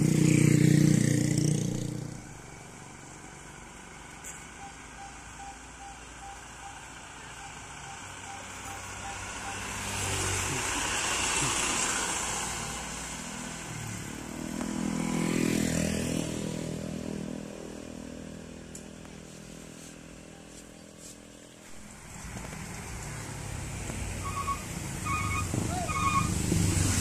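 Road traffic passing one vehicle after another on a wet road: a truck's engine going by at the start, then motorcycles and trucks swelling and fading with tyre hiss. Near the end a heavy engine builds up, and a horn gives three short beeps.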